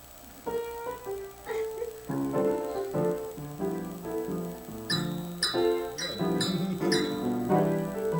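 Piano being played: a few single notes, then full chords struck in a steady flow from about two seconds in.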